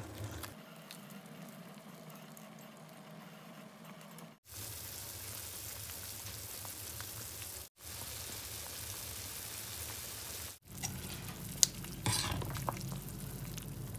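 Steel pot of pork-bone broth and pork meatballs boiling: a steady bubbling hiss, cut off abruptly twice. Near the end a ladle stirs the pot, clicking against the steel a few times.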